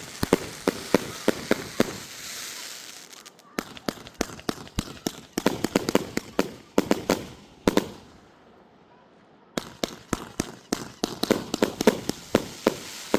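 Titan Attack 100-shot firework cake firing, its shots cracking in rapid succession at about three to four a second. The firing pauses for about a second and a half past the middle, then carries on.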